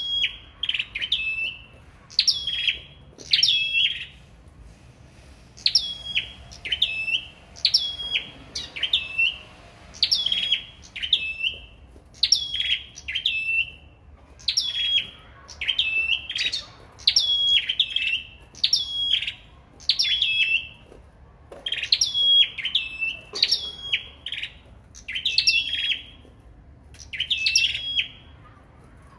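Caged 'sâu đầu đỏ' (red-headed) songbirds singing against one another in a singing duel. Each phrase is a sharp downward note into a brief held whistle, then a lower note. The phrase repeats about once a second, with a few short pauses.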